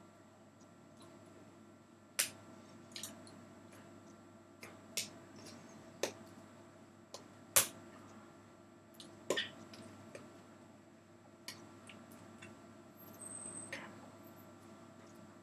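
About a dozen scattered sharp taps and clicks over a steady room hum, as a person signs: hands striking hands and body, and lips and tongue smacking as words are mouthed without voice. The two loudest taps come about two seconds in and a little past halfway.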